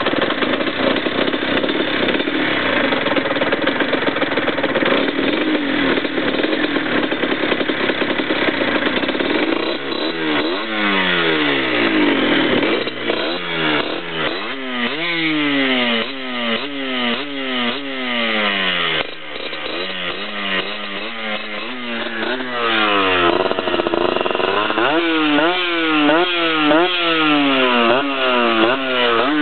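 Yamaha DT 50's single-cylinder two-stroke engine, fitted with a V6 exhaust, held at a steady high buzz. About a third of the way in it switches to repeated throttle blips, the pitch climbing and falling back each time, with one longer high hold a little past the middle.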